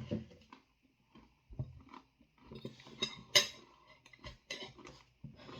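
Cutlery and a plate clinking and knocking as they are handled: a series of separate sharp strikes, the loudest about three and a half seconds in, with quieter handling noise between them.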